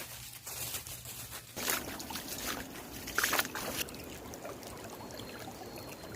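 Water splashing and trickling in irregular bursts, loudest around two and three seconds in, then settling to a low steady wash.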